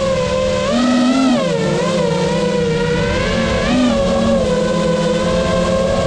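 FPV racing drone's brushless motors and propellers whining, the pitch rising and falling as the throttle changes through the turns, then holding steadier near the end.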